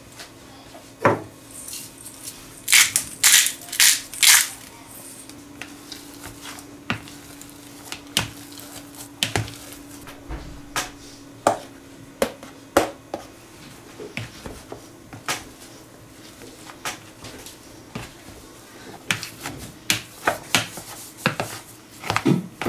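Metal wire potato masher mashing boiled potatoes in a ceramic pot: irregular knocks and clinks of the masher against the pot, with a cluster of sharp, bright clinks about three to four seconds in.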